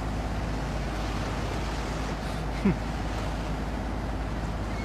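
Motor yacht engine running steadily under way, with wind and water noise. A short falling vocal sound about two and a half seconds in.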